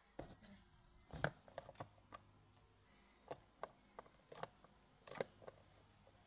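Homemade slime being squeezed and pressed by hand on a plastic lid: a scatter of faint, sharp clicks and small pops at irregular intervals, the loudest about a second in.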